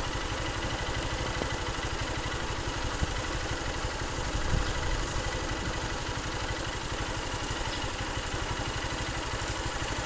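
Motorcycle engine idling steadily.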